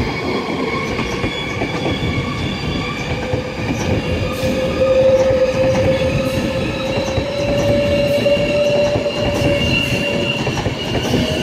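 Class 390 Pendolino electric train accelerating away: a loud rumble of wheels on the rails under a slowly rising electric whine, which the onlooker puts down to the tilt motors.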